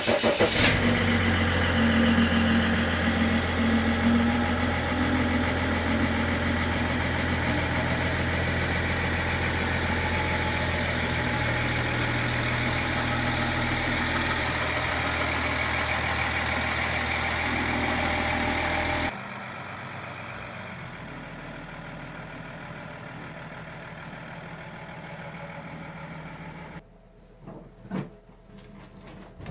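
BMW 530d's M57 three-litre straight-six diesel idling steadily just after starting. About 19 seconds in, the sound drops abruptly to a much quieter, more distant engine sound, and a few knocks follow near the end.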